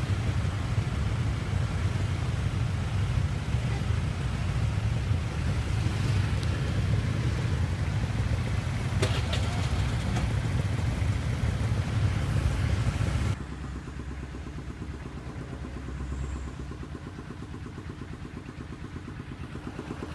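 Heavy road traffic of motorcycles, cars and trucks in a jam, a loud, dense rumble of many engines close around. About 13 seconds in it cuts abruptly to a quieter, steady traffic hum from a road further off.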